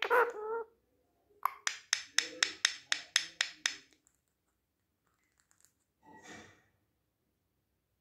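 Indian ringneck parrot making rapid runs of sharp clicks, about seven a second, with a short pitched call at the start. A soft breathy sound follows about six seconds in.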